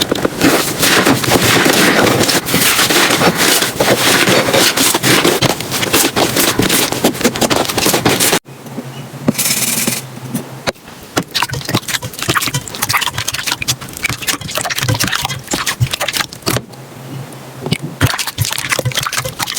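Slime being handled, giving dense crackling and popping clicks. About eight seconds in it cuts sharply to a quieter stretch of scattered crackles and pops.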